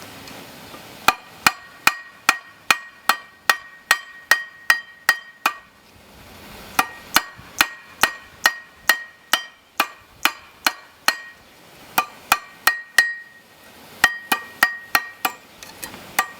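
Hammer blows on steel over a railroad tie-plate anvil: sharp metallic clangs that ring, about two to three a second, in three runs with two short pauses.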